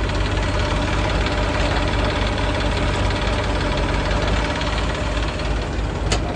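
JCB 3DX backhoe loader's diesel engine running steadily under work. A single sharp click comes near the end.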